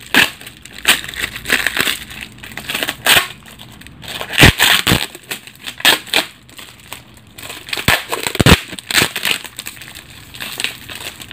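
Tan packing tape being unwound and peeled off a plastic-wrapped parcel, crackling and crinkling in irregular pulls, with a few louder crackles around the middle and near the end.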